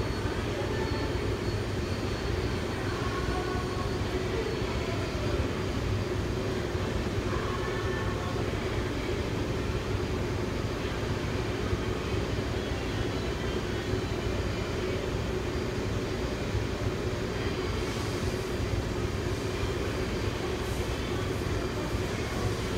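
Shop machinery running with a steady, unchanging drone and low rumble.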